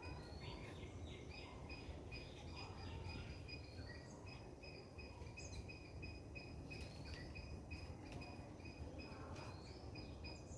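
A cricket chirping in a steady train of short, high-pitched pulses, a few each second, over a low background hum. A few faint, wavering chirps sound above it now and then.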